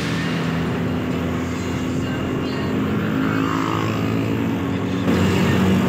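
Engine and road noise of a moving vehicle, heard by a rider on board; it gets louder about five seconds in.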